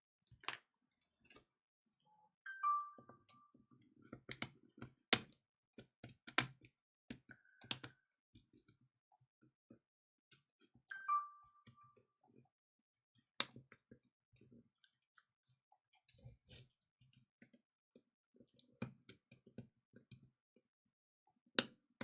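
Irregular small clicks and taps of repair tools working on a tablet as its screen is pried off. Two short ringing pings come a few seconds in and again about eight seconds later.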